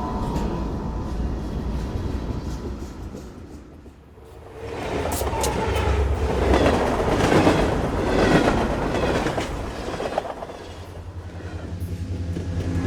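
Freight train sounds. A low rumble fades out, then a train passes, loud and close, with its wheels clattering over rail joints, and fades again. Near the end another low, steady rumble builds.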